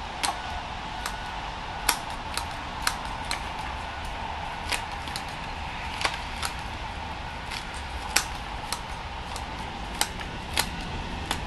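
Bonsai scissors snipping through a fir's fine roots: about twenty sharp, irregularly spaced snips over a steady background hum.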